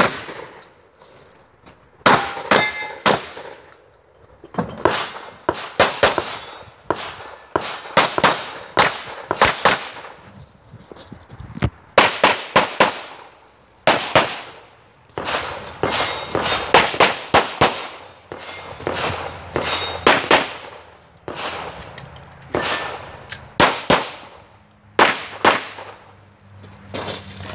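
Pistol shots fired in quick strings of two to four, with short pauses between strings, some answered by the ringing clang of steel targets being hit.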